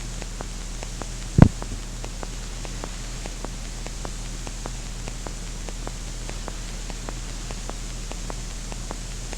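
Steady recording hiss and electrical hum, with faint regular clicks about three times a second. About a second and a half in, one loud low thump.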